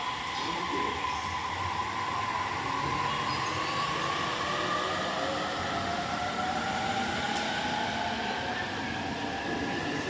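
Electric commuter train pulling away, its traction motors whining with tones that climb slowly in pitch as it gathers speed, over steady running noise.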